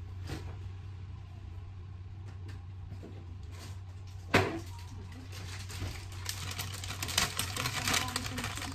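A plastic packet of grated Parmesan cheese crinkling and rustling as it is handled and opened, in the last few seconds, over a steady low hum. A single sharp click sounds about halfway through.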